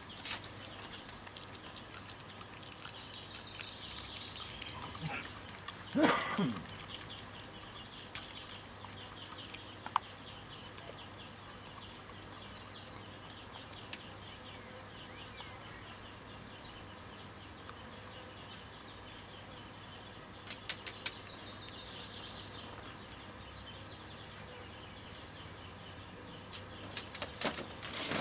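Australian kelpie gnawing a lamb sparerib on the metal floor tray of a wire crate: scattered sharp clicks and crunches of teeth on bone, with one louder knock about six seconds in and a quick run of clicks near the end.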